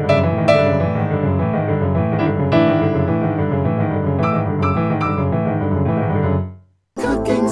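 Piano background music, a steady run of notes, fading out about six and a half seconds in; after a brief gap, different music starts just at the end.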